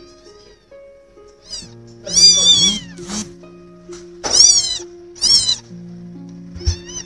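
A newborn kitten, only days old, mewing over and over in loud, high cries, about six in all, each rising then falling in pitch; the loudest come about two and four and a half seconds in. Soft background music with long held notes plays underneath.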